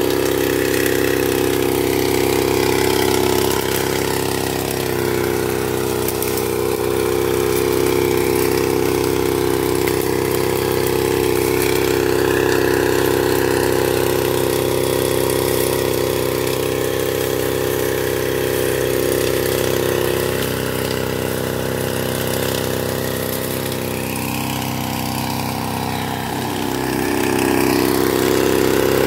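Small engine of a Tanos motorized backpack sprayer running steadily at working speed while it sprays herbicide. The engine note dips briefly and then comes back louder near the end.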